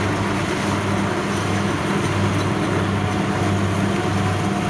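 Kubota DC-60 combine harvester's diesel engine and threshing machinery running steadily as it cuts ripe rice, a constant low drone.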